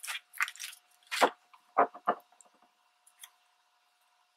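A glue stick rubbed onto a strip of magazine paper in several short strokes, with paper handling, all within the first two seconds or so, the loudest about a second in.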